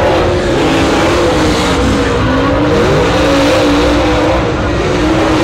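A lone dirt super late model race car's V8 engine running at speed on a qualifying lap. Its engine note dips about two seconds in as the car sets up for a turn, then climbs back as it powers off.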